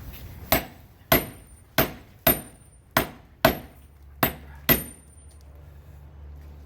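Hammer blows driving a chisel into a freshly smelted iron bloom to cut it apart: eight sharp metallic strikes at a steady pace, a little under two a second, each with a brief high ring. The strikes stop about five seconds in.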